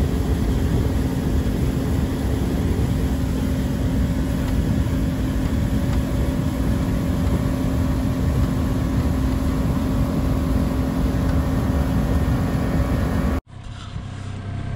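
Boat motor running steadily at speed, a constant drone mixed with the rush of wind and water as the boat moves over the lake. Near the end it cuts off abruptly to a much quieter scene.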